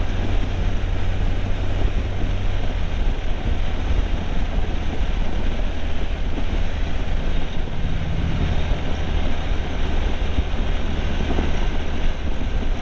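Motorcycle engine running steadily at road speed, a constant low engine note under wind rushing over the microphone.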